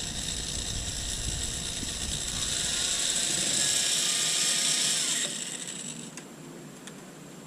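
Power drill driving a heavier-duty screw. It runs for about five seconds, getting louder, and cuts off abruptly a little over five seconds in.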